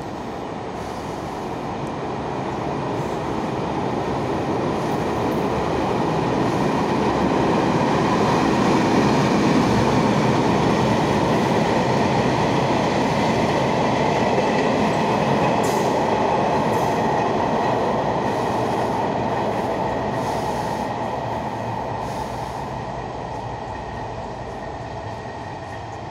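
Locomotive-hauled freight train of flatcars passing through a station without stopping. The rumble of wheels on rail swells as the train comes by, is loudest around ten seconds in, and slowly fades as the wagons roll past, with a faint thin whine over it.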